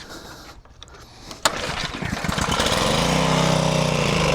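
Briggs & Stratton 163cc single-cylinder engine on a pressure washer firing up about a second and a half in, rising in pitch and settling into a steady run. It is running on starter fluid sprayed into the intake, which the owner takes as a sign of a fuel-delivery problem in its plastic carburetor.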